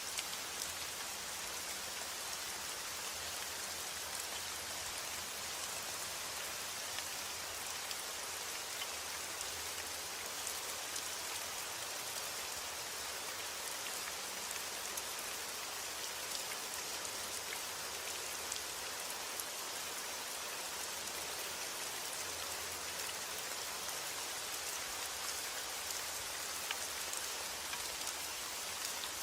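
Heavy rain falling steadily on a roof, an even hiss with scattered drops ticking.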